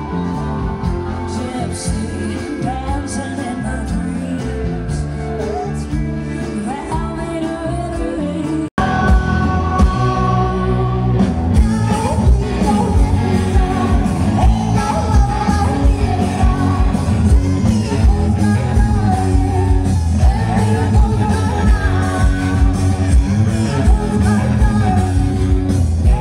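Live band music with singing. About nine seconds in it cuts off abruptly and jumps to a louder song with hard-hitting drums and vocals.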